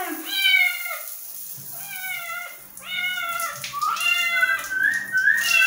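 Domestic cat meowing again and again while held wet in its bath, about five drawn-out meows in a row. These are the complaints of a cat made nervous by bathing.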